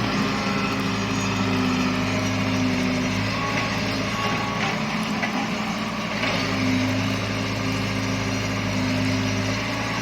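Excavator's diesel engine running steadily with a low hum. The note drops back for a few seconds around the middle, with a few light knocks, then settles back to the same steady hum.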